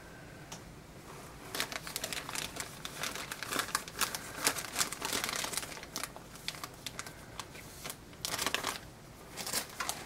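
Clear plastic wrapping and tissue paper crinkling as they are handled in a box. The crinkling comes in irregular crackles, densest from about a second and a half in to about six seconds, with two short flurries near the end.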